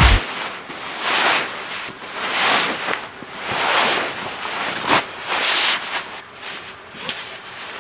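Nylon sleeping-bag fabric rustling and swishing as a puffy sleeping bag is pushed down into its stuff sack, in repeated swishes about once a second that grow quieter near the end.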